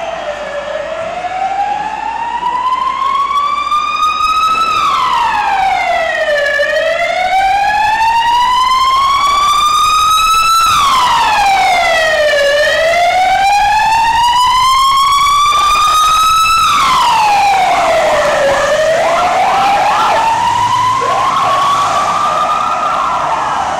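Police vehicle siren sounding a slow wail: the pitch rises over about four seconds, then falls over about two, four times over.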